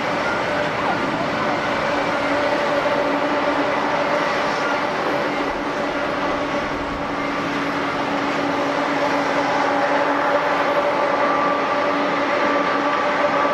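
Four-engine jet airliner's engines running: a steady rushing roar with a steady hum underneath, building slightly toward the end.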